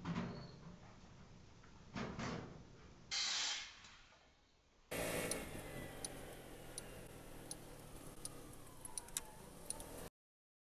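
A few short knock-like noises in the first few seconds, then, from about five seconds in, a car running steadily with a faint shifting whine and light clicks, cutting off suddenly near the end.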